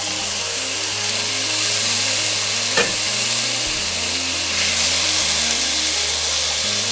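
Chicken pieces and onions sizzling in hot oil in a pot, a loud, steady hiss. A single clack, such as a utensil against the pot, comes about three seconds in.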